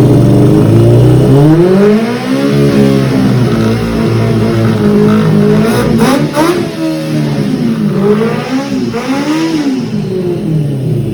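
Superbike engine running with its tank off for throttle body cleaning: held steady for about two seconds, then revved up and dropped back several times, the pitch rising and falling. A few short sharp noises about six seconds in.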